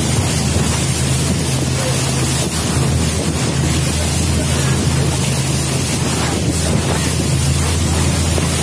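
Jet boat running at speed, its engine a steady low drone, with water rushing and spraying off the hull and wind buffeting the microphone.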